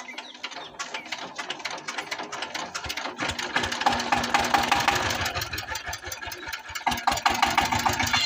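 Single-cylinder diesel engine of a two-wheel power tiller, just started by hand crank, firing and running with a rapid, even beat. It grows louder about three seconds in and again near the end.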